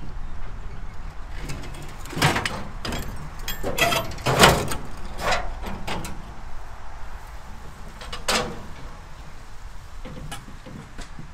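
Metal knocks, clunks and scraping as a Dodge flathead six-cylinder engine, hanging from an engine hoist's chain, is worked free of the truck's engine bay. A run of knocks comes from about two to six seconds in, one more loud clunk about eight seconds in, and a few lighter ones near the end.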